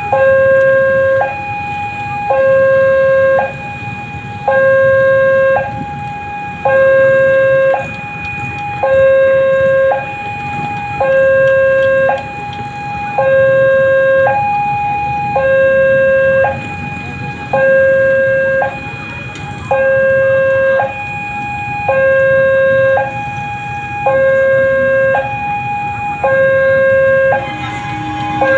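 Railway level crossing warning alarm sounding, a loud electronic two-tone signal that switches steadily between a low and a higher tone about once a second, warning that a train is approaching.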